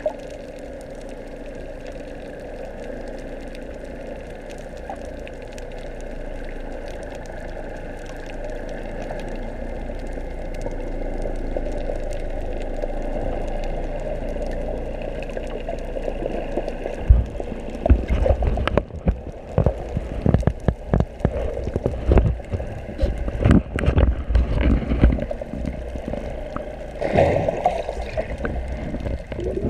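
Underwater audio from an action camera: a steady hum with faint steady tones for the first half, then from about 17 seconds in, irregular water sloshing and splashing thumps as the camera moves near the surface with the swimmer.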